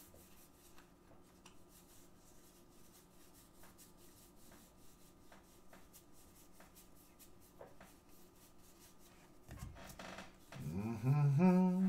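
Baseball cards being slid one by one through a hand-held stack, soft faint rubs and small irregular ticks of card stock against card stock. Near the end comes a low thump, then a man's voice briefly, without clear words.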